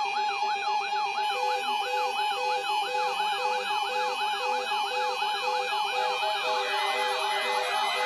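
Several weather-alert radio receivers sounding their alarms together, set off by a NOAA Weather Radio test: overlapping siren-like tones that sweep up and down, over steady tones, with a short beep repeating about twice a second from about a second in.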